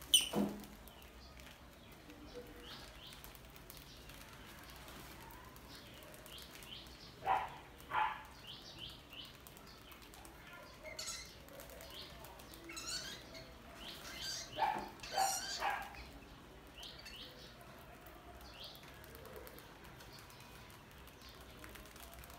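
Mice squeaking and scuffling in and around a metal box trap: scattered short, high-pitched squeaks, loudest right at the start and in clusters about a third and two thirds of the way through.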